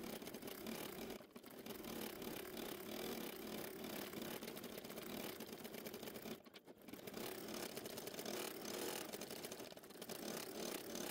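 Computerized embroidery machine stitching, sped up, its needle going in a fast, dense clatter, with a brief break about six and a half seconds in.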